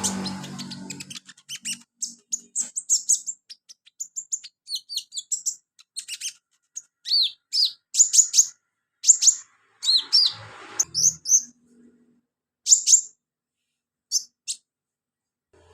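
Sunbird (kolibri/conin) singing vigorously, the 'gacor' song kept as tutoring material for other birds: quick runs of high, sharp chirps and short down-sweeping notes in bursts with brief gaps, sparser near the end.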